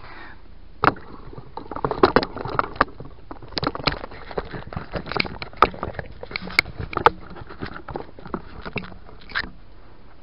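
Handling noise from a camera being picked up and moved: irregular knocks, taps and scrapes against the body near the microphone, starting with a sharp knock about a second in and stopping shortly before the end.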